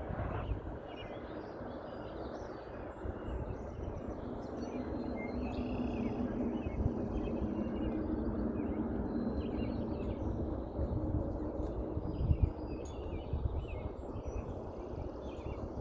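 An unexplained low drone in the sky, a hum that swells from about three seconds in and eases off after about eleven, over a dull rumble of wind and distant traffic. Birds chirp throughout.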